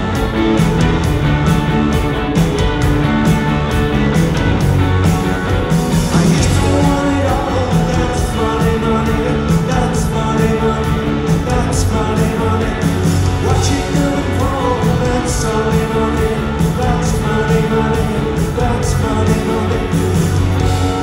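Live rock band playing at full volume: electric guitar, bass and a steady driving drum beat, with a lead vocal sung over it.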